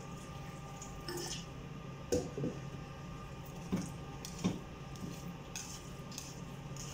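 Hot water poured from a kettle into a pan of browned flour, then worked in with a wire whisk: wet squelching and a few scattered clicks of the whisk against the pan, over a steady low hum.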